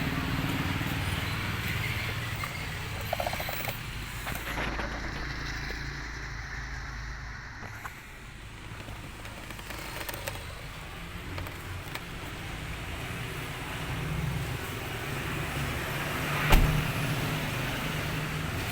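Hummer H2's V8 engine idling steadily, with a random misfire that shifts from cylinder to cylinder. A single sharp knock comes near the end.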